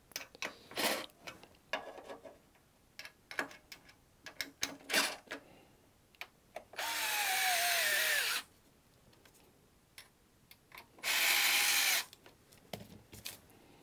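Small cordless electric screwdriver driving screws into a steel battery case. There are scattered clicks and taps, then two short runs of the motor: the first lasts about a second and a half, its whine falling in pitch as the screw draws tight, and the second, about a second long, comes near the end.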